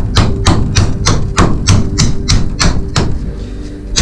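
Claw hammer tapping repeatedly on a scraper, about three blows a second, driving the blade in behind the door-frame trim of a caravan to prise it off; the blows pause about three seconds in.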